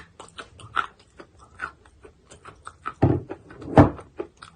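Close-up chewing of a chalk bar: a quick run of small crunches and clicks as the chalk breaks down toward a paste, with two louder crunches about three and four seconds in.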